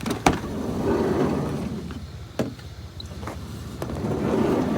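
Car door and window handling: two sharp clicks at the start, two short rushing stretches about a second in and again near the end, and a loud knock at the very end.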